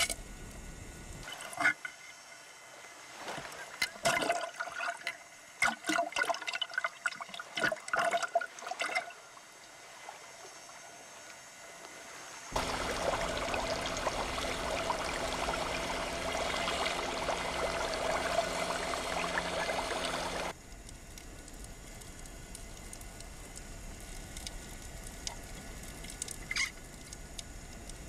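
Underwater ambience with a scatter of sharp clicks. Then the outboard motor and propeller of a boat overhead, heard underwater as a loud, steady hum over churning water for about eight seconds, which cuts off suddenly.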